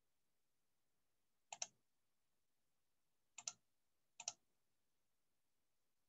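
Near silence broken three times by a short double click: once about a second and a half in, again past three seconds, and again just past four seconds.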